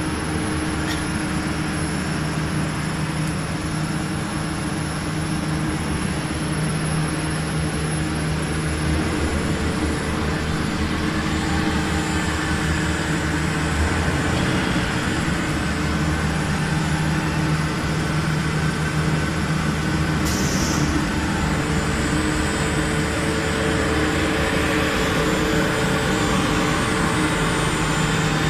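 ABA plastic film blowing machine running: a steady mechanical drone with several held low hum tones, getting a little louder partway through.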